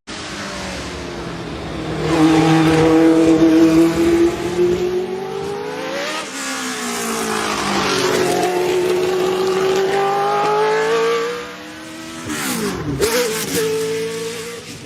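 Race car engine running at high revs, its note climbing slowly, with a change in pitch about six seconds in, then climbing again. Near the end the pitch drops sharply and rises back up.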